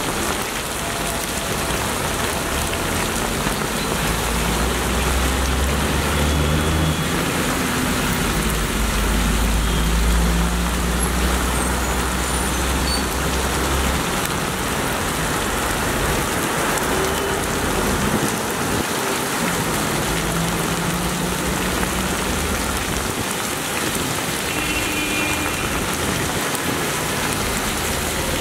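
Heavy rain pouring steadily onto a street. Low engine rumble of passing motor traffic runs under it for the first half, then fades.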